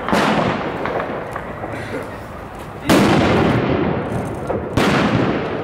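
Three loud firework bangs, about two seconds apart, each trailing off in a long echoing rumble; the middle bang is the loudest.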